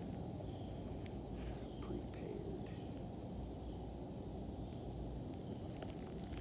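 Steady outdoor background noise, mostly a low rumble, with a faint thin high drone like insects in the background.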